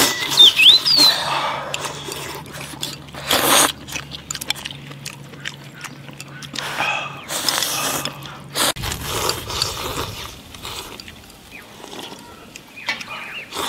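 People slurping and eating hot noodle soup from bowls: several short, loud slurps with quieter chewing between them.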